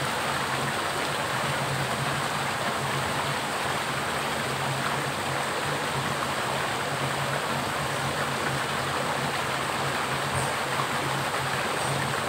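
Small creek pouring through a narrow rock channel into a pool: a steady, even rush of water.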